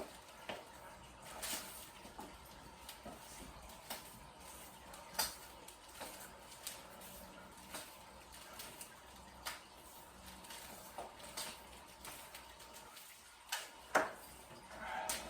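Scattered light clicks and knocks of small hard objects being handled and set down, about one every second or two, over a quiet background.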